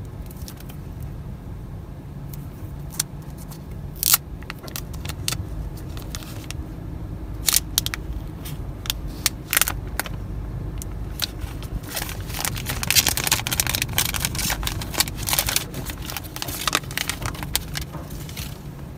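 An iPhone 12 mini box's packaging being handled and unwrapped: plastic crinkling in sharp, scattered crackles and snaps, thickest in the last third, over a steady low rumble.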